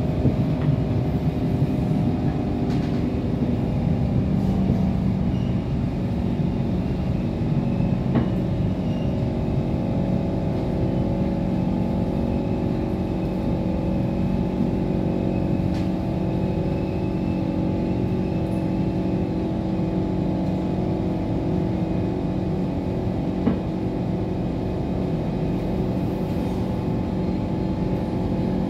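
Cabin noise of an SMRT C151 metro train running into a station: a steady rumble of wheels on rail with the hum of the traction motors, and a few faint clicks.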